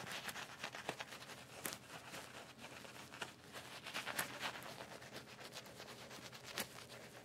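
Synthetic-fibre shaving brush (Omega S-Brush) working lather over the face and stubble: faint, scratchy swishing with many small irregular clicks and a few sharper ticks.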